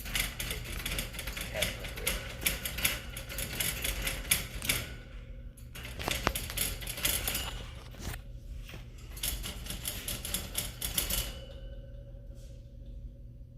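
Rapid, irregular clicking and rattling of small hard objects in two spells, with a short break about five seconds in; it stops about eleven seconds in.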